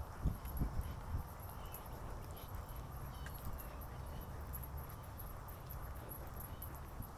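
Walking footsteps in sneakers on a gritty paved path, with a few heavier thuds in the first second and a steady low rumble of the phone being carried. Faint high insect chirping runs underneath.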